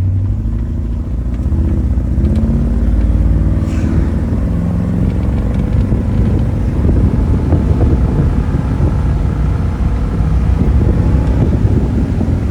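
1966 Chevrolet Impala SS's 327 small-block V8 pulling the car along, its note rising steadily over the first several seconds as the car accelerates. Wind and road noise build in the second half, with the convertible top down.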